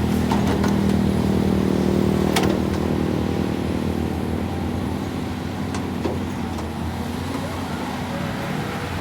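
Excavator engine running at a steady pitch, with a few sharp metallic clicks, the loudest about two and a half seconds in.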